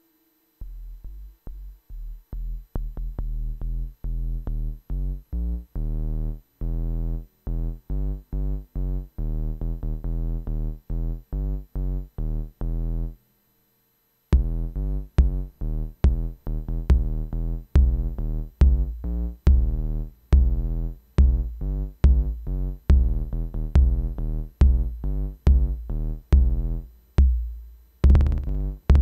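Electronic jam on Korg Volca groove boxes: a sequenced drum-machine and synth bass pattern pulsing in an even rhythm. It stops dead for about a second near the middle, then comes back with heavier, punchier low hits.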